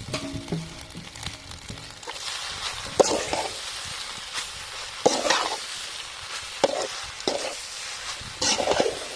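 Boiled pasta being stirred into a sizzling masala of fried onion, tomato and spices, a spoon scraping the pan in irregular strokes over a steady sizzle that swells about two seconds in.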